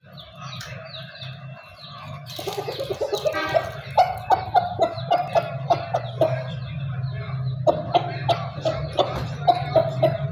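Black Aseel rooster clucking in a run of short, quick clucks, about three a second, while it pecks at the ground, with a harsher call about two to three seconds in. A steady low hum runs underneath.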